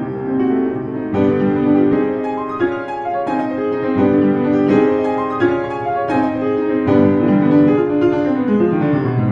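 Background music led by piano, a steady run of notes and chords, with a falling run of notes near the end.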